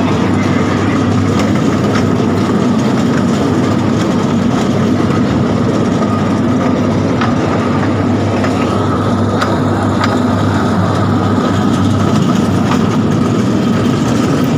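Electric kiddie ride-on train running around its rail track, a loud steady motor hum with occasional clicks from the wheels on the rails.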